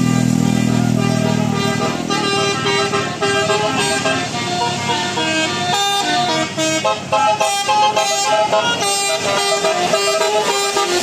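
Basuri telolet musical bus horn playing a quick tune of short stepped notes. A low steady drone cuts off about two seconds in, just before the tune begins.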